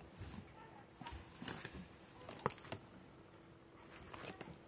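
Faint handling noise: a few soft clicks and knocks, then rustling near the end, as the recording phone is picked up and turned around, over quiet room tone.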